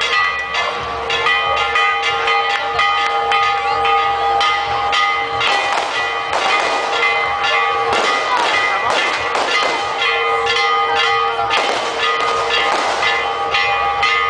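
Church bells rung fast and without a break, each stroke landing before the last has died away, so the bell tones keep sounding over one another.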